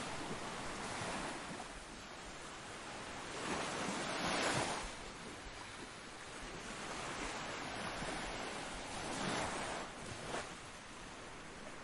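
Ocean waves breaking and washing in, a steady rush of surf with a louder swell about four seconds in and two smaller ones near the end.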